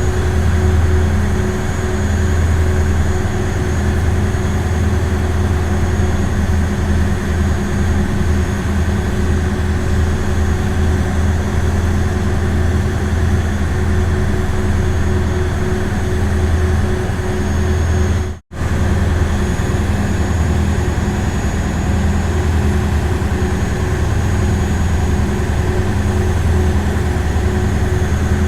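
Ferry boat engine running steadily: a constant low drone with a steady hum over it. The sound cuts out completely for a split second about two-thirds of the way through, then carries on unchanged.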